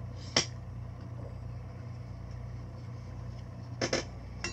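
Steady low electrical hum, with three short clicks or taps as the soldering iron and circuit board are handled: one near the start and two near the end.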